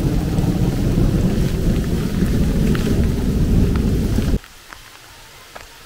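Tropical thunderstorm: heavy rain with a loud low rumble of thunder. The rumble cuts off suddenly about four seconds in, leaving lighter rain with scattered drops ticking.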